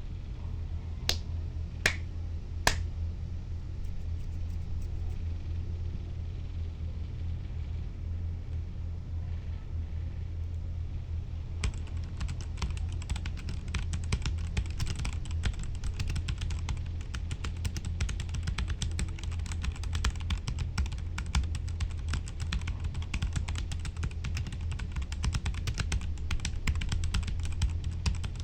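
Dark Alien K710 budget mechanical keyboard with red linear switches being typed on: three sharp loud clicks about a second apart near the start, then sparse keystrokes, then a fast continuous flurry of key clacks from about a third of the way in, over a steady low hum.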